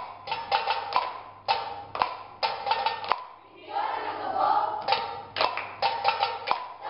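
Children's choir singing, broken by sharp percussive knocks in an uneven rhythm, with a stretch of fuller singing about halfway through.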